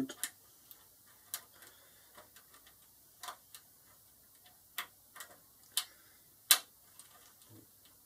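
Irregular small metallic clicks and ticks of a lock pick working the pin stack of an E*S MP5 pin-tumbler door cylinder under tension. One click, near the end, is sharper and louder than the rest.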